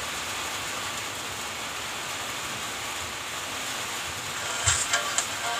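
A steady hiss. Near the end, a portable DVD player's small speaker starts playing a TV broadcast's sound in short, choppy bursts as the TV Plus channel comes in.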